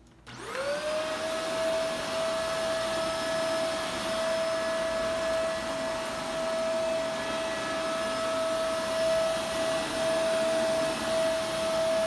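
Upright vacuum cleaner switched on just after the start, its motor winding up quickly to a steady high whine over a rushing hiss, then running evenly as it is pushed over carpet.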